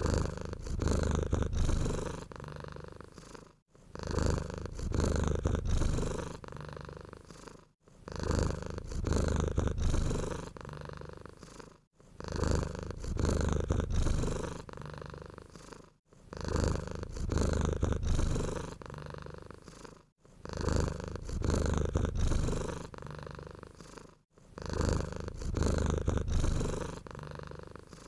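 Domestic cat purring close up, the purr swelling and fading in an even cycle about every four seconds with a brief pause between cycles.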